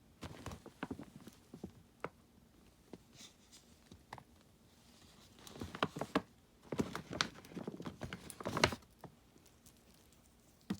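Small plastic mini dolls and their accessories clicking and clattering as they are handled and taken out of a bag, in irregular bursts that grow busier about halfway through.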